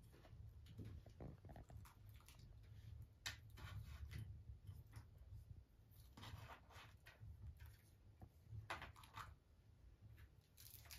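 Faint, scattered rustles, soft tearing and light clicks of hands working at food, over a low steady room rumble.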